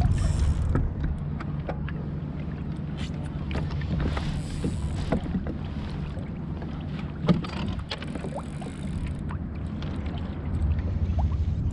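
Wind buffeting an action camera's microphone and water lapping against a kayak hull, with scattered small clicks and one sharp knock about seven seconds in.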